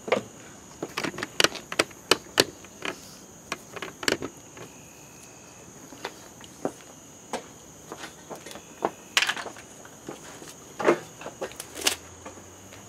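Irregular knocks and clicks as the camera is picked up, moved and set down by the work table, over a steady high drone of insects.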